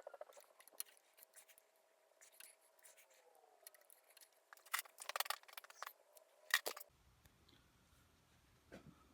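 Hand-stitching a leather lever cover: scattered small clicks and scrapes of needle, thread and leather, with a run of sharper clicks around the middle and one loud click about two-thirds through, after which only a faint hum remains.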